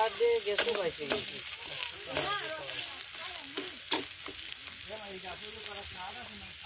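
Dosa sizzling in a steel frying pan while a metal spatula presses and scrapes it, with a few sharp taps of the spatula against the pan.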